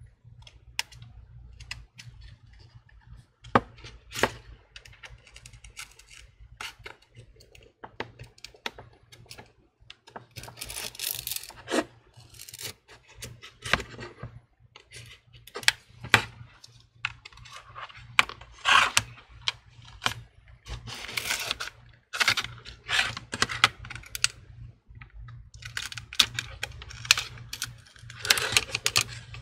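A pry pick clicking and scraping as it is worked around the edge of a cracked iPhone 11 screen, cutting through the display adhesive to separate the screen from the frame. The clicks and scrapes come in irregular bursts, thicker in the second half.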